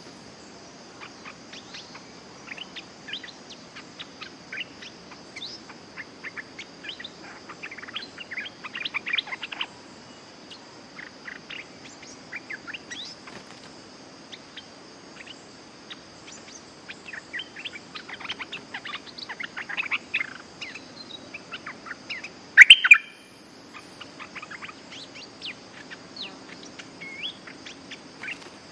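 Bulbuls, the streak-eared bulbul being trapped, give bursts of short chirping calls in scattered clusters over a steady high insect drone. About three-quarters of the way through comes one loud, sharp burst.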